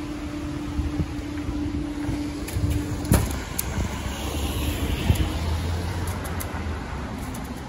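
Level crossing barrier motor humming steadily as the barriers rise, cutting off with a clunk about three seconds in. A car engine rumbles low through the rest, with another knock about five seconds in.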